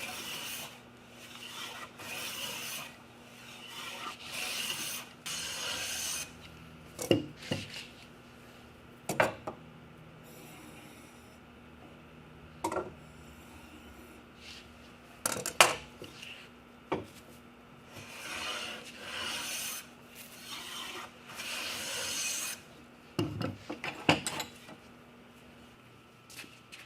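Hand tool working wood in repeated rasping strokes, in two runs of several strokes each. A few sharp knocks fall between the runs.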